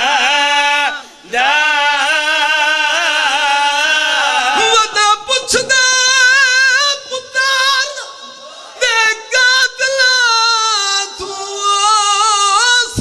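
A zakir's solo male voice chanting a Punjabi mourning elegy for a Shia majlis, in long, wavering held notes that rise and fall. It breaks off briefly about a second in and again around eight seconds.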